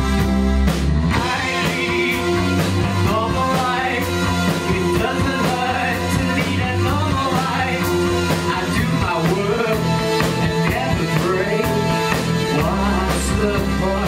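Rock band playing with a steady drum beat, electric guitars and bass; a man sings lead from about a second in until near the end.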